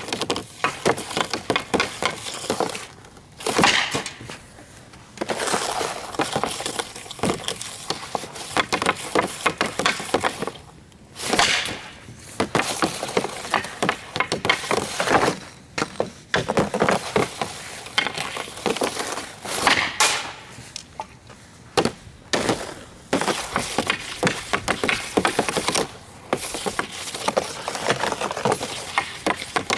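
Repeated hockey shots with a Total One NXG composite stick on outdoor ice: the blade scraping and slapping the ice, pucks cracking off the stick and clattering against the net and frame, in bursts with short quieter gaps between shots.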